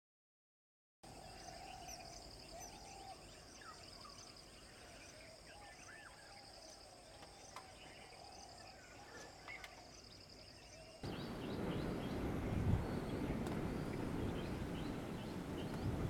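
Outdoor nature ambience starting about a second in: scattered bird calls over a steady, high-pitched pulsing drone. About eleven seconds in the background changes abruptly to a louder low rumbling noise with faint chirps.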